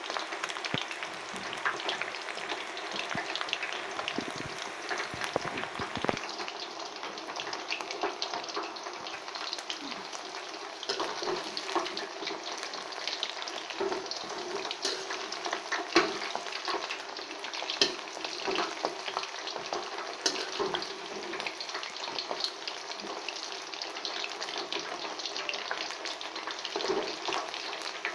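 Chicken pakoras deep-frying in hot oil in a steel karahi, a steady crackling sizzle with many small pops. A slotted steel spatula stirs and turns them, scraping and clicking against the pan.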